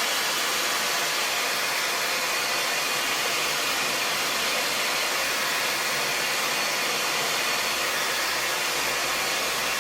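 Handheld hair dryer blowing steadily with an even rushing whoosh of air and motor, held on one setting.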